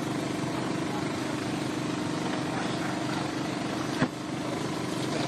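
Engine running steadily at an even speed, with a single sharp knock about four seconds in.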